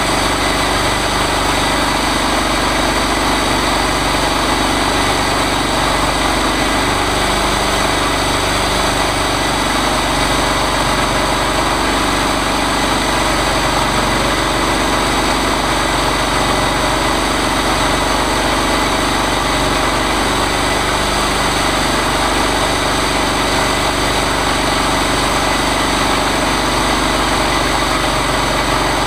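Engine of a homemade chainsaw mill running steadily at an even speed.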